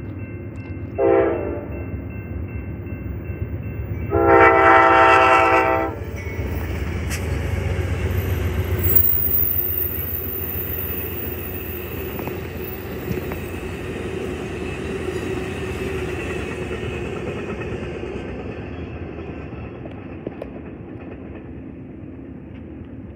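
Amtrak passenger train's locomotive horn gives a short blast, then a longer one: the end of the signal for a grade crossing. The passing train's wheels then rumble and clatter on the rails, fading slowly as it moves away.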